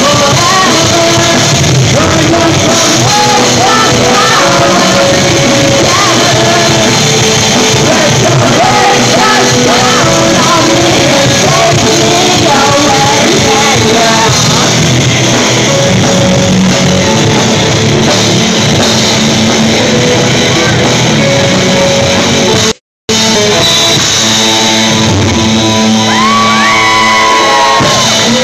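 Live rock band playing loud in a hall, with drums, electric and acoustic guitars, bass and a singer. The sound cuts out for a split second about three-quarters of the way in.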